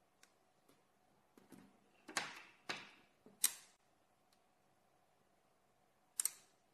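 Magnetic rings and 17 mm steel balls clicking together as pieces are snapped into place on a magnetic ball-and-rod structure: a few faint ticks, then three sharper metallic clacks with a short ring about two to three and a half seconds in, and a quick double click near the end.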